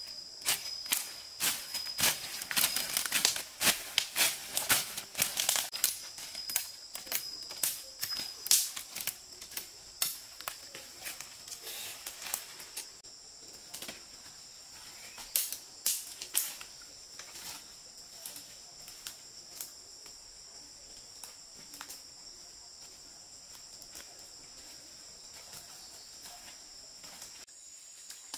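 Crackling and snapping of leaves and twigs as people push and step through forest undergrowth, dense for the first dozen seconds and then thinning out. A steady high-pitched insect drone runs beneath.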